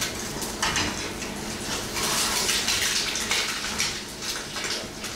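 Eggs frying in a nonstick pan: a steady sizzle with scattered crackles, and a metal utensil scraping and tapping against the pan.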